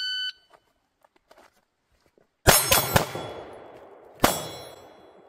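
A shot timer beeps the start signal, and about two and a half seconds later a pistol fires three quick shots, then a fourth just over a second later. Each shot echoes, and a steel target rings after the last one.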